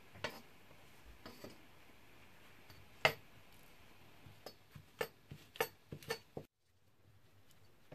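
Faint, sharp clicks and taps of a steel kitchen knife and hands against a wooden cutting board, about seven in all; the loudest comes about three seconds in and a quick cluster follows. The sound cuts off abruptly a little before the end.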